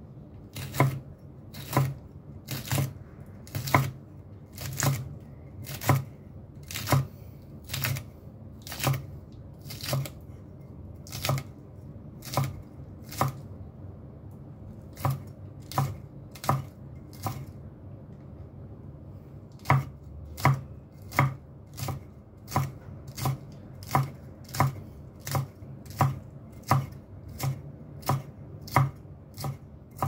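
Kitchen knife chopping green chilies on a cutting board, steady strokes about two a second with two short pauses.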